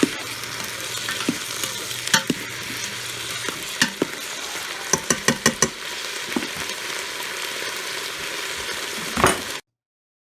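Food sizzling in the Ninja Foodi's cooking pot while it is stirred, with a steady hiss and sharp clicks of the utensil against the pot, including a quick run of clicks about five seconds in. The sound cuts off suddenly near the end.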